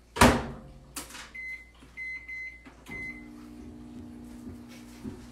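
Microwave oven being started: a loud thud and a knock, a run of short high keypad beeps, then a steady hum as it starts running about three seconds in.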